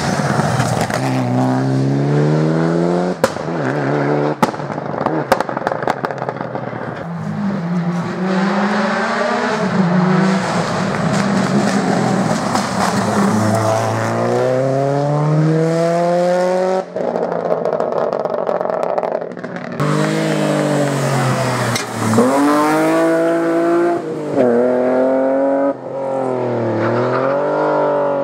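Rally cars, among them a Mitsubishi Lancer Evolution and a Subaru Impreza, driving hard through a bend one after another: each engine revs up through the gears, its pitch climbing and then dropping at every shift. There are a few sharp cracks a few seconds in.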